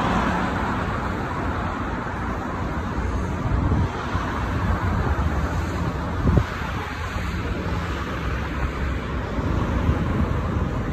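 Steady outdoor city noise: a low traffic rumble with wind buffeting the microphone, and a single brief thump about six seconds in.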